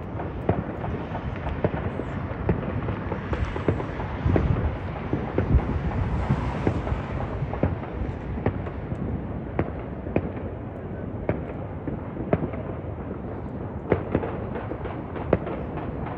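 A fireworks display: a steady string of sharp bangs and crackles over a rumbling background, building to a denser, louder stretch of bursts about four to seven seconds in.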